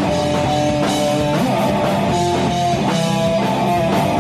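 Rock band playing live: an electric guitar carries a melody of held notes over bass guitar and a steady drum beat.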